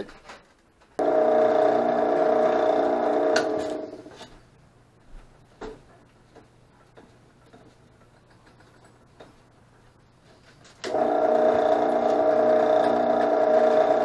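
Benchtop drill press motor running with a steady hum. It starts suddenly about a second in and winds down near four seconds, then starts again about eleven seconds in and keeps running.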